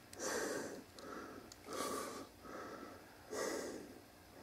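A person breathing audibly, a steady run of soft in-and-out breaths a little under a second apart.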